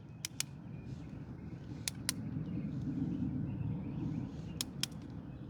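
A handful of sharp, separate clicks from a torque wrench tightening the coolant drain bolt, over a low rumble that swells in the middle and fades again.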